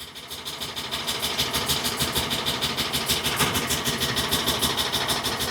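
Ford 6.8-litre V10 in a 2013 E-450 running rough, with a fast, even, rattle-like clatter that grows louder over the first second or two. The engine is misfiring on cylinders 1, 6 and 10.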